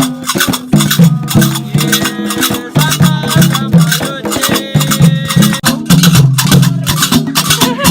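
Music with a steady, busy percussion beat of hand drums and rattles over a repeating bass line.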